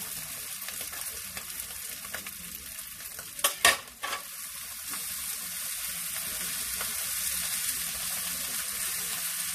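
Diced potatoes and ham sizzling in a frying pan while being stirred with a spatula. A few sharp knocks, loud against the sizzle, come about three and a half seconds in.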